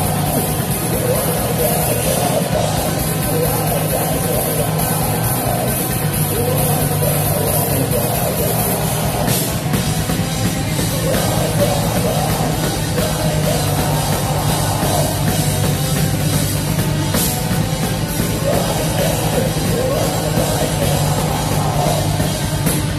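Post-black metal band playing live and loud: distorted guitars over rapid, dense drumming, continuous with no break.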